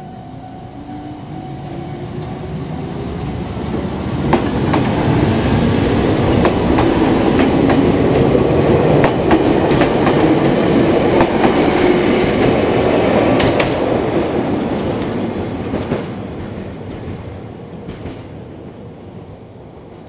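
Kobe Electric Railway electric train running past on single track, with a motor whine rising in pitch over the first few seconds and wheel clicks over the rail joints. It builds up, is loudest for several seconds in the middle, then fades away.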